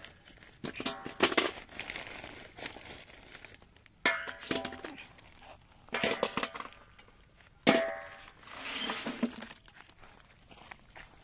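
Live freshwater snail shells clattering and clinking against each other and against a metal basin as they are handled, with the woven plastic sack rustling under them. Sharp clatters come about a second in, around four and six seconds, and loudest near eight seconds, some with a brief metallic ring.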